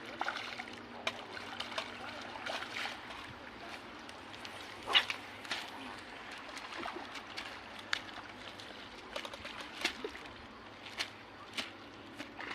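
Water splashing and trickling, with scattered short sharp clicks and knocks, the loudest about five seconds in.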